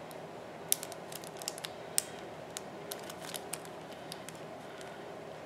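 A clear plastic packet being handled: scattered light crinkles and sharp little clicks as it is turned in the fingers, most frequent in the first three seconds and sparse after.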